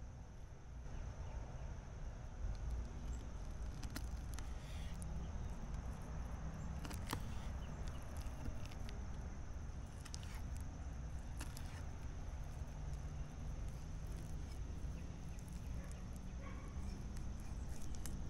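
Knife cutting the pin bones out of a fish fillet on a wooden cutting board: a few sharp clicks and taps of the blade against the board, over a low rumble and a steady thin high whine.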